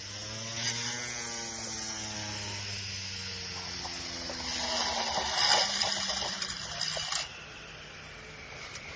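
NKETSYU 21V cordless weed trimmer's electric motor running with a steady hum, its pitch bending up and then easing back in the first few seconds. From about four and a half seconds a louder hiss joins it and stops suddenly near seven seconds.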